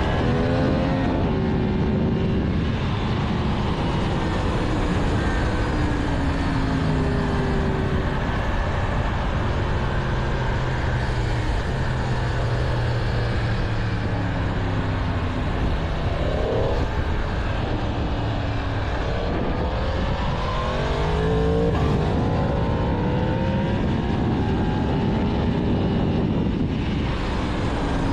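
Yamaha MT-10's crossplane inline-four engine on its stock exhaust under way, its pitch rising and falling repeatedly as the bike accelerates and slows, with steady wind rush.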